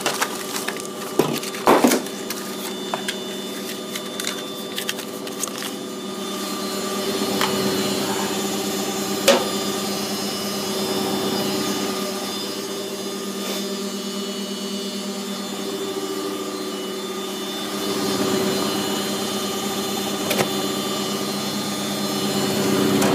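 Candy GODF800 front-loading washing machine spinning with its door open: a steady motor hum and whir of the drum. There are clicks and knocks through the first few seconds and a sharp knock about nine seconds in, and the spin swells louder twice.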